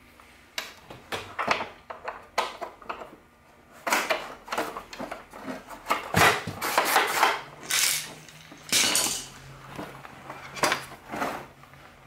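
Irregular plastic clicks, knocks and scrapes from handling a Hoover Elite 700 upright vacuum: the pile-height lever knob is snapped on and the machine is moved about on a concrete floor, with the busiest clatter in the middle.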